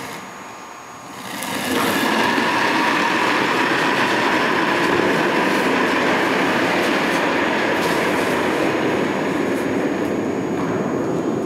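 Granite curling stone running down the pebbled ice after delivery: a loud, steady rumble that builds up about a second in and keeps going without a break.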